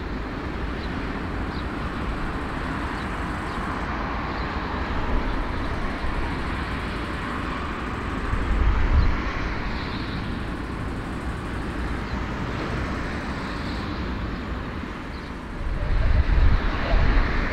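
Airbus A340's four jet engines running at taxi power, a steady rumbling hiss. About two seconds before the end a louder, gustier low rumble sets in.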